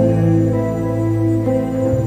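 Live band music: a soft passage of long held chords, changing to a new chord near the end.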